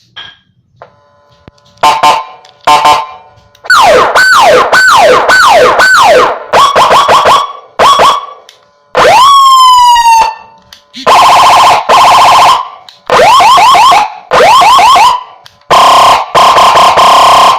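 An Echo Gamma 45 W electronic siren module sounding through a 10 W horn speaker, loud, cycling through several siren tones in separate bursts. It plays quick falling sweeps about twice a second, then one long wail that rises and slowly falls, then fast warbling yelps.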